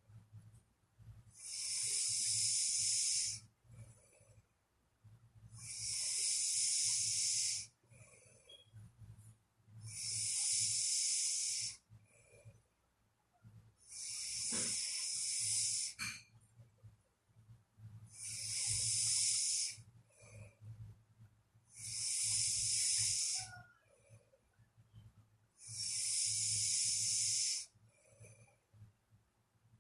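A sleeping person snoring in a slow, even rhythm, about one breath every four seconds, seven times. Each breath is an airy hiss rather than a deep rattle, over a faint low hum.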